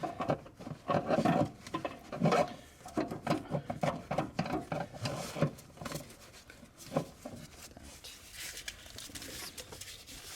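Irregular rubbing and scraping as parts are handled around a car battery during its installation. It is busy for the first six seconds or so, then quieter.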